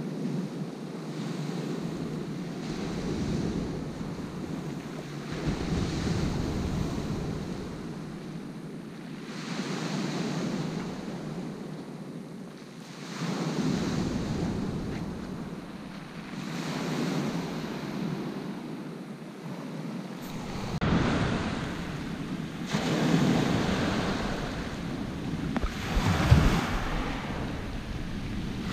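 Small sea waves breaking and washing up a pebble beach, swelling and falling every three to four seconds. Wind buffets the microphone, most in the last third, with one short thump near the end.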